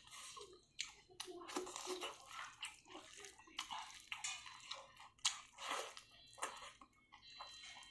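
Close-miked eating sounds: a person chewing a mouthful of food, with irregular wet smacks and clicks.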